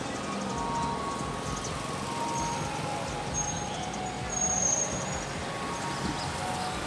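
Steady outdoor street ambience: a hum of distant traffic, with a few brief high-pitched tones.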